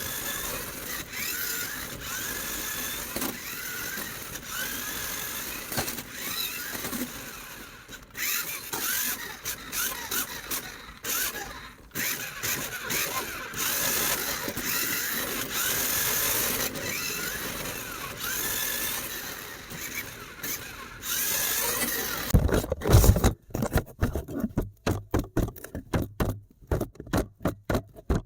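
Small electric motor of a remote-control toy whirring, spinning up again and again in short rising whines. Near the end it gives way to a rapid series of clicks and knocks.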